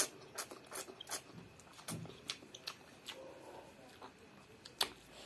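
Wet, close mouth sounds of a child eating rice and meat curry by hand: chewing and lip smacks heard as short, sharp clicks at an irregular pace, with a louder smack at the very start and another near the end.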